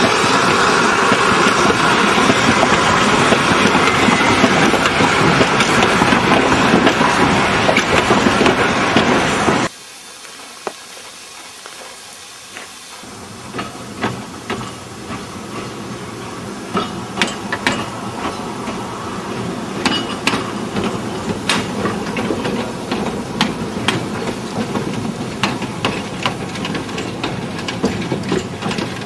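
Old wooden passenger coaches rolling past on the rails, a loud steady rumble that cuts off abruptly about ten seconds in. Then steam hissing from a small steam tank locomotive, NSB class 7a no. 11, with many sharp clicks and knocks, gradually growing louder.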